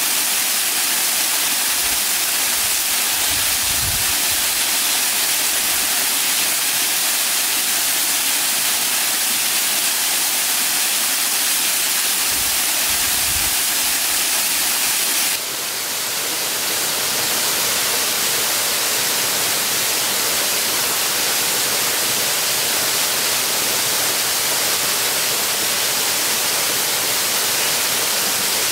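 Steady, loud rushing hiss of running water, like a nearby stream or waterfall, with a sudden shift in its tone about halfway through.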